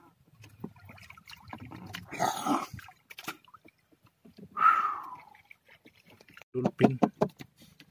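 Seawater splashing and sloshing around a swimmer gripping a boat's outrigger, with a few short bursts of a man's voice near the end.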